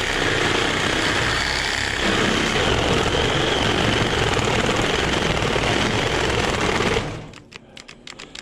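Cordless reciprocating saw cutting through an AC condenser's copper-and-aluminium coil, running steadily, then stopping abruptly about seven seconds in as its battery goes dead.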